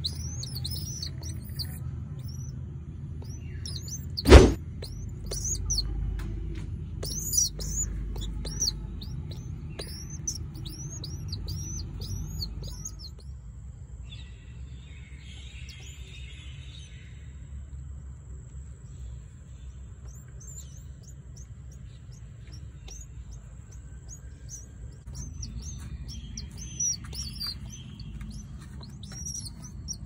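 Pigeon squabs peeping: rapid, high-pitched begging chirps that thin out about halfway through and pick up again near the end. A sharp knock about four seconds in.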